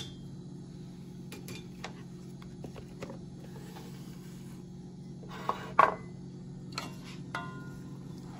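Cookware and utensils handled at the stove: scattered light clicks and taps, a louder clatter just before six seconds in, then two metallic clinks with a short ring. A steady low hum runs underneath.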